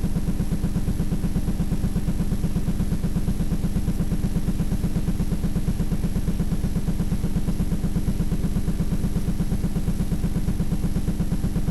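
A steady low mechanical drone with a fast, even pulse.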